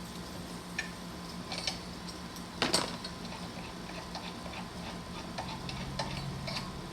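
Light clicks and small metal clatter of drill bits and tools being handled, with one louder clack about two and a half seconds in. A steady low hum runs underneath.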